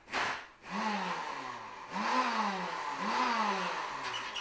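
Electric kitchen blender chopping coarse chunks of onion, carrot and mushroom. After a short burst it runs in three pulses; each time the motor note climbs and then slowly drops as the blade works through the vegetables.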